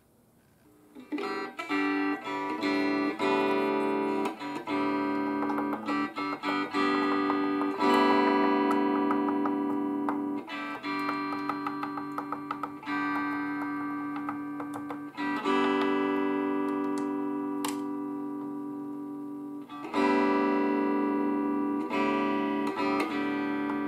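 Guitar chords playing through an opened Marshall guitar amp, starting about a second in, with fresh chords struck every few seconds and left to ring down. Short sharp clicks come among them as the circuit board is tapped with a wooden chopstick, a check for a loose contact or cracked solder joint behind the amp's dropping and unsteady volume.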